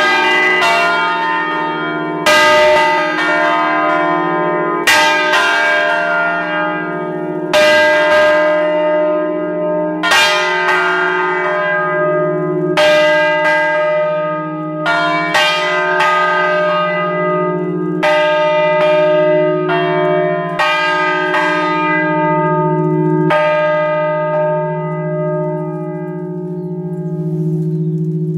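A five-bell peal in E-flat cast by Achille Mazzola of Valduggia in 1951, motor-driven and rung from an automatic controller, striking about every two and a half seconds with several bells overlapping. About 23 seconds in the strokes stop and the bells' low hum slowly dies away: the end of the peal.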